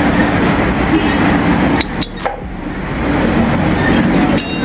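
A loud, steady mechanical rumble, like a nearby engine or traffic, with a few faint clicks. It dips briefly about two seconds in.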